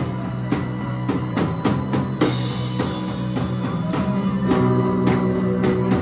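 Live rock band playing an instrumental passage: steady low bass notes under a regular beat of drum hits, with no vocals.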